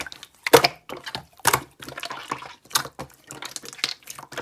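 Slime being squished and pressed by hand, making irregular wet clicks and pops, several a second.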